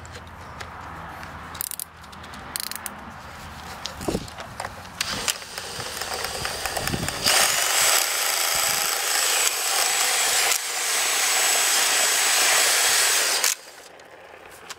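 Cordless drill driving an old string trimmer's shaft, running at a steady high whine for about six seconds before cutting off suddenly. Before that come clicks and handling noise and two short rising whirs.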